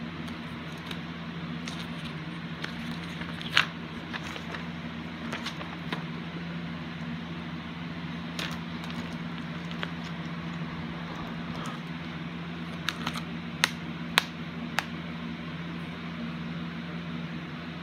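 A plastic Blu-ray case and its paper insert booklet being handled: scattered clicks and light rustling over a steady background hiss and hum. A few sharper clicks come near the end.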